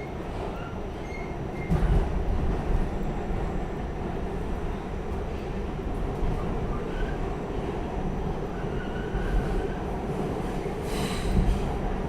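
Inside a moving R46 subway car: steady rumble of steel wheels on the track, with short thin wheel squeals and two heavier jolts, about two seconds in and about eleven seconds in.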